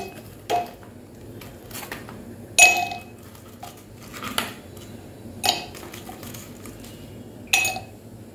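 Ice cubes dropped one at a time into a cut-glass tumbler, each landing with a sharp clink that rings briefly. There are five clinks, a second or two apart, with a few fainter taps between them.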